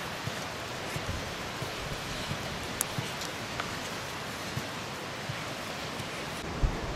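A steady hiss with a few soft knocks and clicks as a wooden stick stirs thick flour porridge in a pot over a wood fire.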